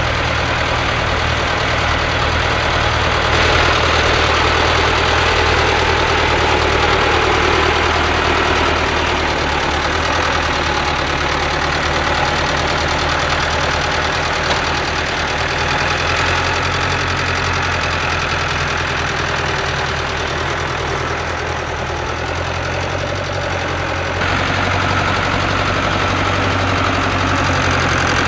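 International Harvester 785 tractor's diesel engine running steadily under load while pulling a reversible plough through the soil. Its note shifts slightly about ten seconds in, and it grows louder near the end.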